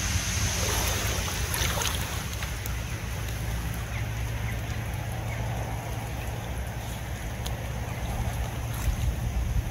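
Water sloshing and splashing around a wading angler's legs in a shallow lake, heaviest about two seconds in, over a steady low rumble of wind on the microphone.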